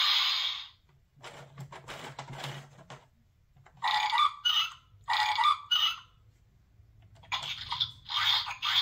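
A sound book's electronic tune cuts off in the first second. Then the book's plastic gear wheels are turned by hand, giving a run of rattling clicks and several short squeaky scraping bursts.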